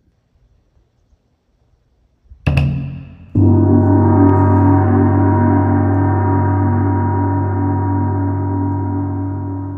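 A short metallic strike, then a large gong struck once and left to ring: a deep tone with many overtones that wavers slowly and fades gradually.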